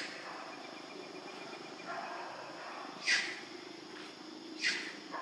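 Infant macaque giving three short, high-pitched squeals, each dropping in pitch, the second about three seconds after the first and the third a second and a half later: a baby crying for its mother.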